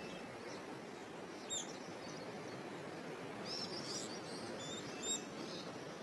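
Forest background: a soft steady hiss with a few short, high bird chirps, about one and a half seconds in, a cluster around four seconds in, and another near five seconds.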